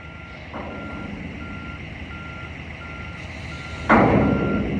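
Heavy equipment's reversing alarm beeping steadily, a single tone about once every 0.7 seconds, over an engine running. About four seconds in comes a sudden loud burst of noise, the loudest sound here, fading over about a second.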